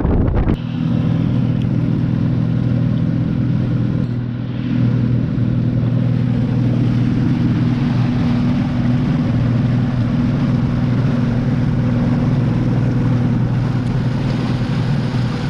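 Boat engine running at a steady speed, with a brief dip in revs about four seconds in before it picks back up.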